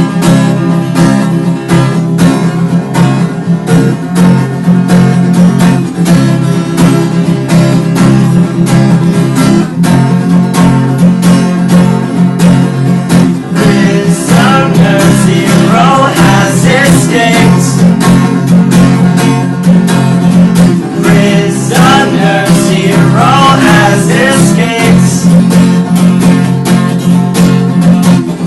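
Acoustic guitar strummed in a steady, even rhythm, with a voice singing over it from about halfway through.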